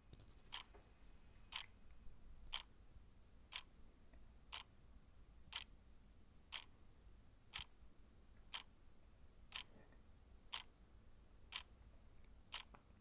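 A clock ticking steadily, one sharp tick a second, over a faint low hum.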